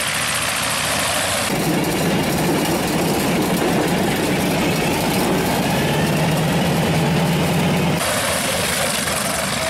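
Radial engine of a propeller plane running at low power while it taxis on grass. About a second and a half in, the sound switches to inside the cockpit, a louder, steadier engine drone, and switches back to the outside sound near the end.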